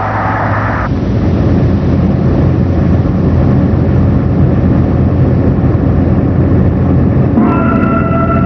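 Steady low rumble of a heavy semi-truck's engine and road noise while driving on the highway. Music comes in about a second before the end.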